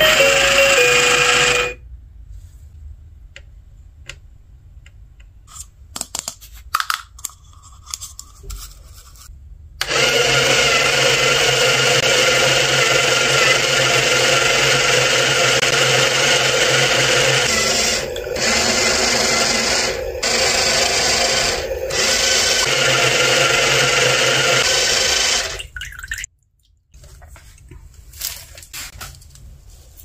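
A toy washing machine's electronic tune ends in the first two seconds, followed by scattered clicks of handling. About ten seconds in, the toy's small electric motor starts running steadily as it pumps the water out through its drain hose into a bucket, dropping out briefly three times before stopping about 25 seconds in.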